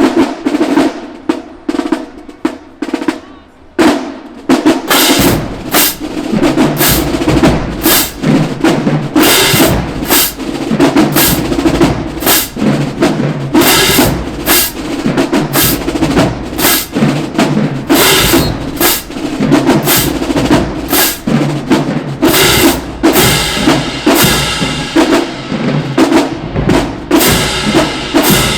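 Marching band drumline playing a cadence. Sparse snare hits open it, then the full line with bass drums comes in about five seconds in and keeps a driving rhythm.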